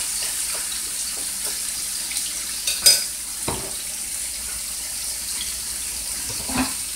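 Flour-dredged boneless beef short ribs sizzling in a skillet as they brown, a steady hiss with a few light clicks and knocks, the sharpest about three seconds in.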